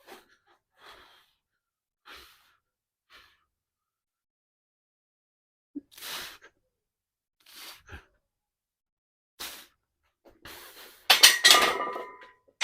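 Short, sharp breaths and exhales during a set of barbell squats. About eleven seconds in, a loud metallic clanking with a ringing note as the loaded barbell and its plates are set back on the rack.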